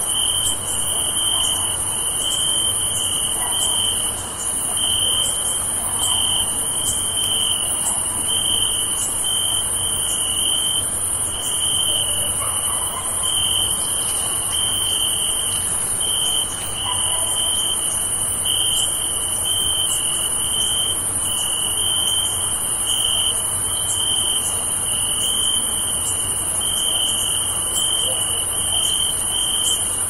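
Night chorus of crickets: a steady pulsing chirp under a constant high-pitched insect hiss.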